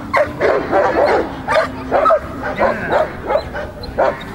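Belgian Malinois barking over and over in short, high yipping barks, about three a second.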